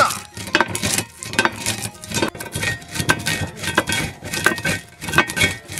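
Wheel of a traditional boat-shaped metal roller mill rolled back and forth in its trough, crushing dry whole spices such as cinnamon bark and cardamom pods to a powder: a dense run of crackling, crunching and metallic clinking.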